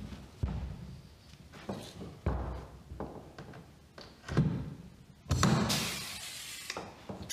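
Pneumatic pop-rivet gun setting blind rivets into a fiberglass composite hovercraft sidewall panel: a string of irregular clunks and clicks, with the heaviest clunks and a longer hiss of air about halfway through.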